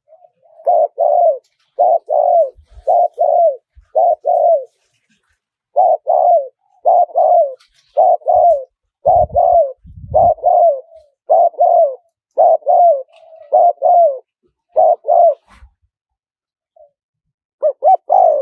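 Spotted dove cooing: short, soft coos mostly in pairs, repeated in a steady run of phrases, in the wild-bird 'karom' style with a high, small voice.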